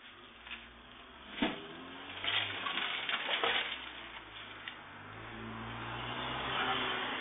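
Through a security camera's microphone: a sharp knock, then a couple of seconds of rustling and clattering with a few clicks from someone rummaging inside a van through its broken window. From about five seconds in, a car approaches, growing steadily louder.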